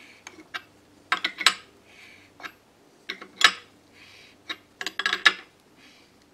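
A wooden blank being forced by hand onto the metal locating points of a lathe copier fixture: irregular clusters of sharp knocks and metallic clinks as it is worked into place.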